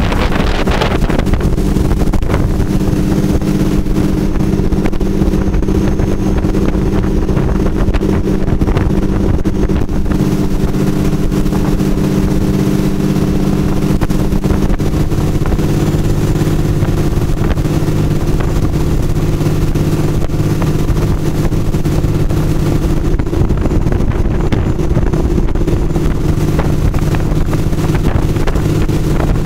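Small fishing boat's engine running steadily at planing speed, with wind and water rushing past the hull. The engine note shifts a little lower about halfway through.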